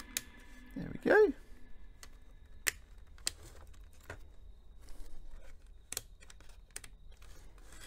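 Hard plastic clicks, taps and light knocks as the top case of a Sanyo RM-5750 clock radio is worked down onto its base and its tabs. About a second in there is a brief, louder pitched sound that rises and falls.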